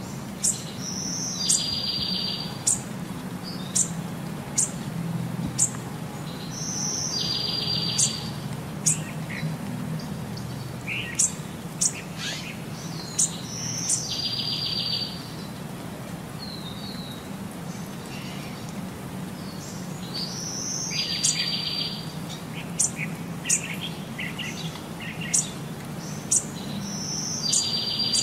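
Bird calls: a short rapid trill repeated about every six or seven seconds, with sharp high chirps scattered between, over a low steady hum.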